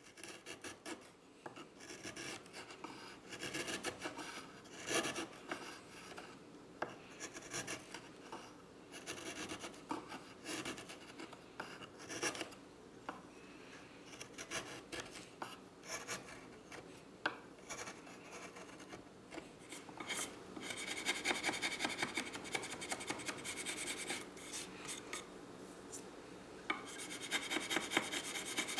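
Hand chisel paring walnut and curly soft maple, a run of short, irregular scraping cuts that shave off curls. About two-thirds of the way through, the strokes come closer together and brighter.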